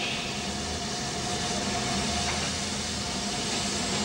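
Steam locomotive standing with a steady hiss of steam, with a faint steady whine under it.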